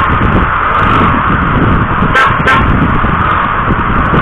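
Steady wind and road noise from a moving motorcycle, picked up by an action-camera microphone. A vehicle horn toots twice briefly about two seconds in.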